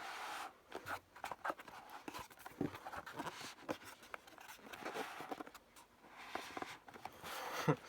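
Toy packaging being handled: an uneven run of small clicks, scrapes and rustles as a part is worked loose from its box insert.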